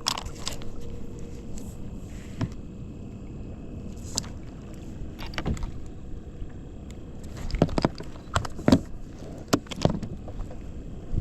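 Sharp clicks and knocks of fishing tackle being handled on a plastic paddle ski, several in quick succession near the end, over a steady low rush of water and wind.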